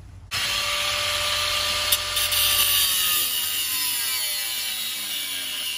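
Power tool running, a loud whine over a steady hiss that starts suddenly and holds on, its pitch slowly falling.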